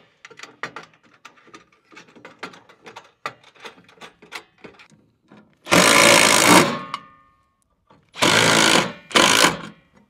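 Small metal parts clicking and rattling as the inlet-box fittings are handled, then a Milwaukee Fuel brushless cordless driver runs in three short bursts, about a second, then two shorter ones, tightening the nut on the conduit nipple through the inlet box. The first burst leaves a brief metallic ring.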